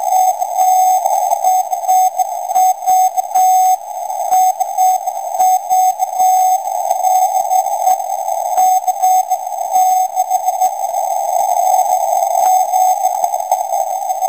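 Morse code from a Skanti Marinetta lifeboat emergency transmitter received on shortwave: a single steady-pitched tone keyed on and off in short dashes, inside a narrow band of receiver hiss.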